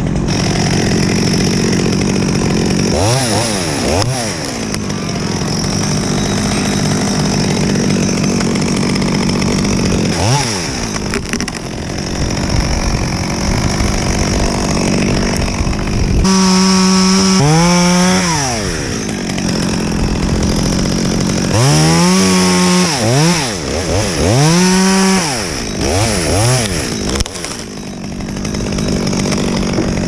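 Petrol top-handle chainsaw running steadily, its engine revved up and dropping back again: briefly a few times early on, held high for a couple of seconds about halfway through, then revved up and down repeatedly later.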